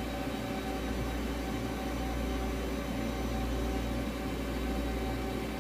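Steady machinery hum: a strong low drone with a few faint steady tones above it, unchanging throughout.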